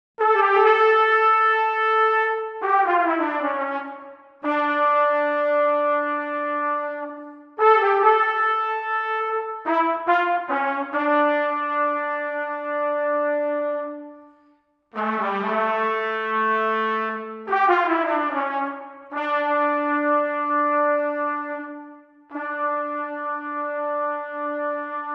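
Trumpet ensemble playing held chords in slow phrases, each chord sustained a few seconds, with short breaks between phrases and a moment of silence about fifteen seconds in.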